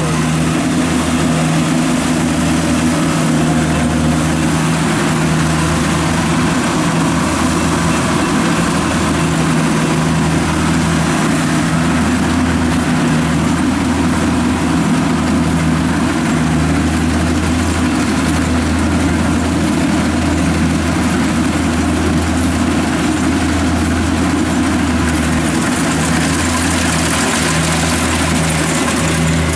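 Diesel engine of a Kubota rice combine harvester running steadily, a loud, even low hum at a constant pitch.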